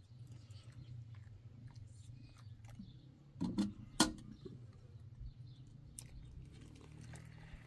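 Tea glasses and metal kettles handled on a metal tray: small clinks and knocks, a louder knock about three and a half seconds in and a sharp clink at about four seconds. A steady low hum runs underneath.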